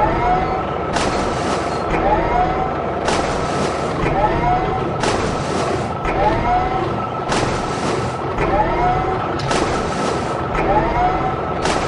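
A looped sound effect that repeats about once a second: a short hiss with a pair of squeaky rising-then-falling chirps, over a steady hum.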